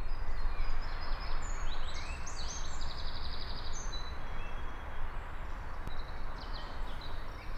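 Small birds chirping, with a fast trill about three seconds in, over a steady outdoor background noise with a low rumble.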